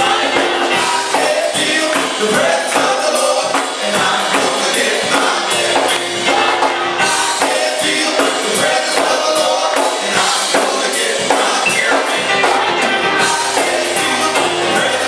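Worship music with singing and a steady beat of high percussion strikes.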